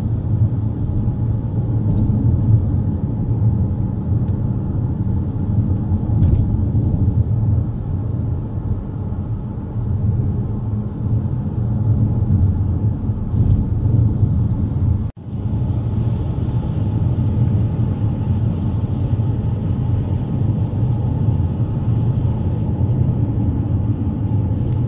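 Steady low road rumble of a car in motion, heard from inside the cabin: engine and tyre noise without a break, except for a momentary cut-out about fifteen seconds in.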